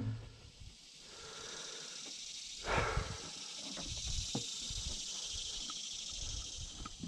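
Footsteps on grass with a steady high hiss behind them, and one brief louder swish about three seconds in.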